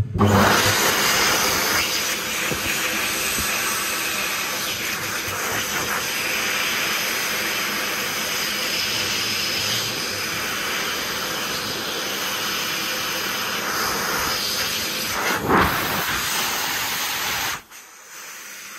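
Hokwang (Dolphin) hand dryer starting as hands go under it, running with a steady loud rush of air, then cutting off suddenly about a second before the end, leaving a much fainter steady hiss.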